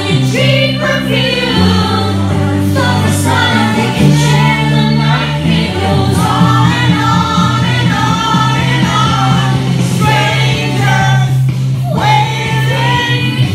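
A group of people singing karaoke into a microphone over a loud backing track, with steady bass notes changing every second or two under the voices.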